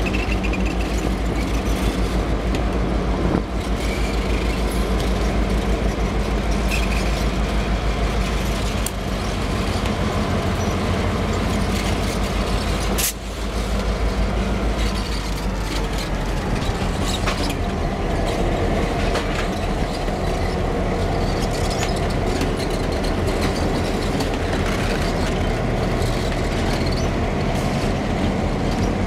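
Canadian Pacific diesel locomotives, streamlined F-units among them, rolling slowly past at close range: a steady low engine rumble whose note shifts as each unit goes by, with scattered wheel-and-rail clicks and one sharp click about halfway through.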